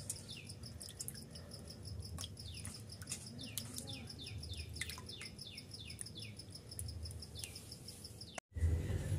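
Small birds chirping, a scatter of quick falling chirps, over a steady, fast-pulsing insect trill.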